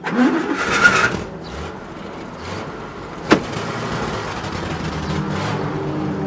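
Vintage sedan's engine starting in the first second, then a car door slamming shut about three seconds in, and the engine running steadily as the car pulls away.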